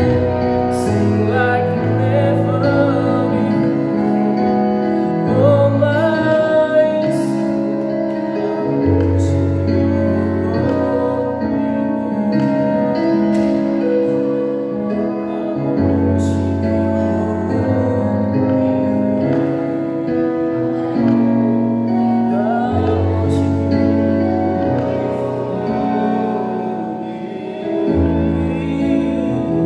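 A man singing a slow Christian worship song in phrases over keyboard accompaniment, the keyboard holding sustained chords with a bass note that changes every few seconds.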